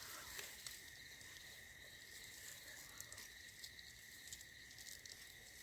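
Faint, steady night insect chirring, likely crickets, with a few small scattered ticks and rustles.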